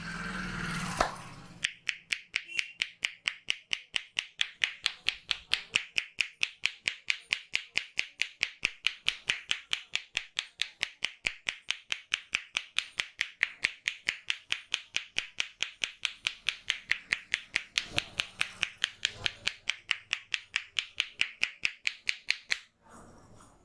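A barber's hands tapping rhythmically on a client's head in an Indian head massage: a long run of sharp, even, snapping taps, several a second, that stops suddenly near the end.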